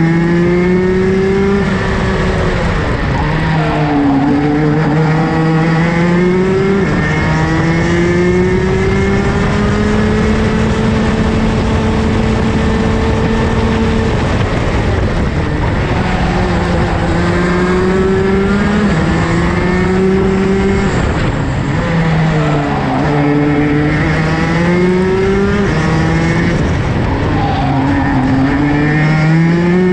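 Rotax DD2 kart's 125 cc two-stroke engine heard onboard at racing speed. Its note rises on the throttle and drops off under braking into corners, over and over, holding high and steady for several seconds along a straight before falling away about halfway through.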